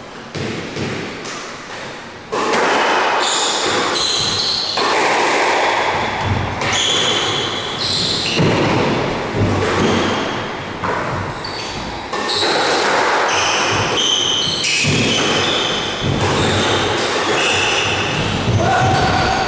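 Squash rally starting about two seconds in: the rubber ball repeatedly smacking off rackets and the court walls, with short high squeaks from the players' shoes on the wooden floor, all echoing in the enclosed court.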